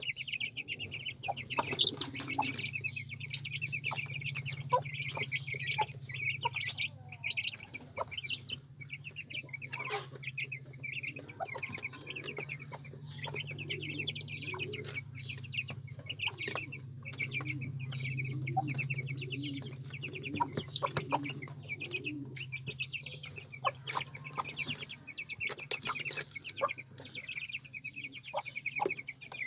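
Chicks of a Herati hen peeping continuously in rapid, high, short calls, with the hen's lower clucking joining in mostly through the middle stretch. Scattered sharp ticks and a steady low hum lie underneath.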